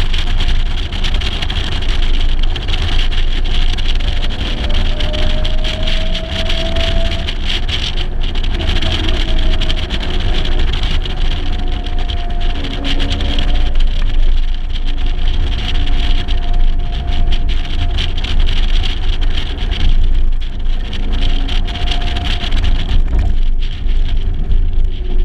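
1956 Mercedes-Benz 300 SL's straight-six engine running on the move, its pitch rising and falling with the revs. Heavy wind buffeting on the externally mounted microphone.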